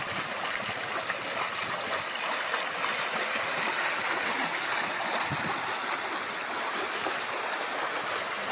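Steady rushing wash of river water as sailing boats slip past close to the bank.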